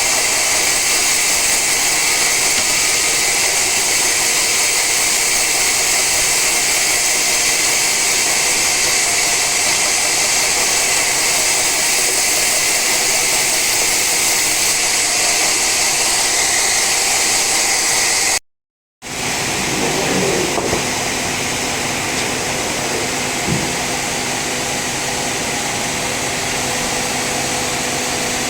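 Sawmill saw running steadily through an old teak log: a loud, even machine hiss and whine. It drops out for a moment about two-thirds through and resumes slightly quieter.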